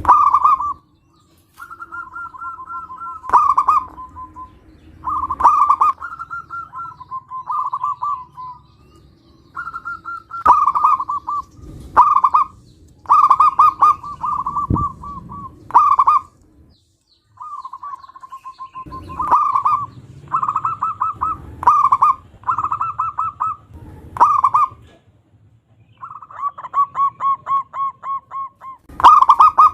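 Zebra doves (perkutut) cooing: short phrases of quick rolling coo notes around one pitch, repeated over and over with brief pauses, two birds at times overlapping.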